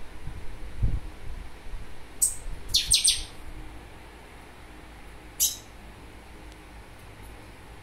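A small caged songbird giving short, very high chirps: one about two seconds in, a quick run of them a moment later, and another past the middle. A few low bumps come in the first second.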